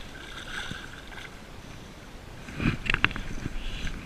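Water sloshing and lapping around a float tube being finned along, with a louder burst of splashing and knocking about two and a half seconds in.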